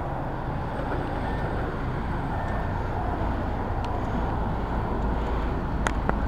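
Steady low rumble of outdoor background noise, with two sharp clicks near the end.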